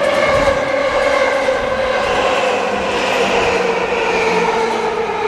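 An E235-series Yamanote Line electric train pulling into the platform, its traction motors whining in several tones that slowly fall in pitch as it brakes, over wheel and running noise.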